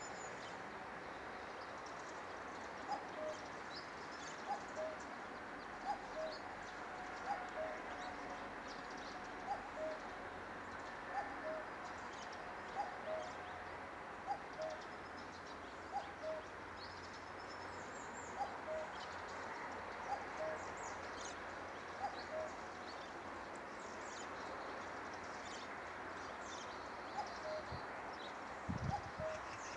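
Common cuckoo calling its two-note 'cuck-oo', a higher note then a lower one, repeated about every two seconds over a steady hiss. Faint chirps of small birds sound in between, and there is a low thump near the end.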